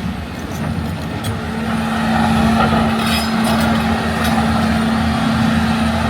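LiuGong 942F excavator's diesel engine running steadily with a constant hum, growing louder about two seconds in as the machine works, with a few short metallic clicks.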